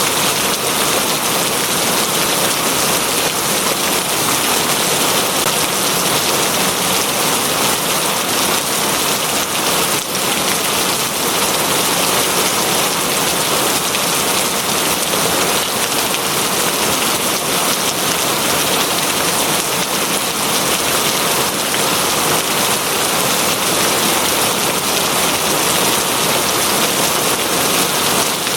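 Steady rain falling on a surface, an even hiss of drops with no let-up.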